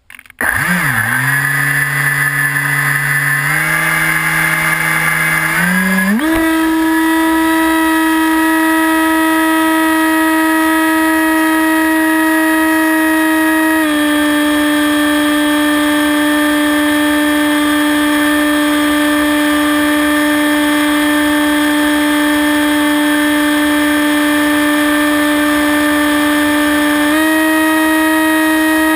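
Hawk Sky RC plane's brushless electric motor and propeller whining, picked up by a camera on the plane. The pitch rises in two steps over the first six seconds as the throttle comes up for takeoff, then holds steady, dips slightly about halfway through and rises again near the end.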